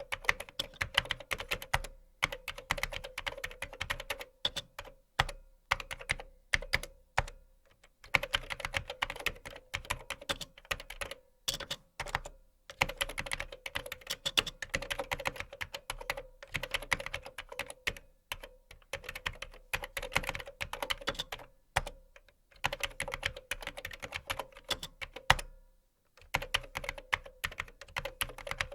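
Typing on a computer keyboard: fast runs of key clicks in bursts of a few seconds, broken by short pauses, with occasional louder single key strikes.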